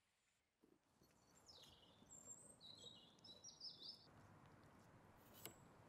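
Faint woodland background with a bird giving a few short, high chirps between about one and a half and four seconds in.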